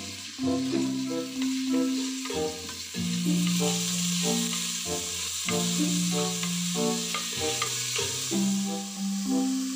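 Meat frying in hot oil in a black pot, sizzling steadily, with the scrape and tap of a wooden spatula stirring it. A background music melody of low notes plays throughout and is the loudest sound.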